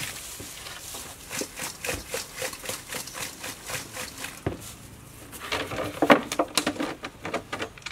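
Gloved hand tossing and mixing small round Willughbeia fruits in a stainless steel bowl: a run of soft, quick clicks and squelches, about three a second. A few louder clacks come about two-thirds of the way in.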